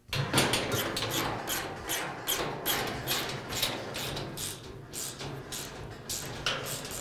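Sheet-metal back panel of a Weber gas grill cabinet handled into place and fastened with a hand screwdriver: a string of light, irregular metallic clicks and knocks, about two to three a second.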